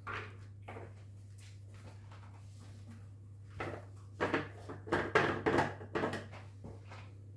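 Hollow plastic knocks and clatters from handling reverse-osmosis membrane housings and their clips on a bench: a couple of light knocks at the start, then a quick run of louder ones in the second half. A steady low hum underneath.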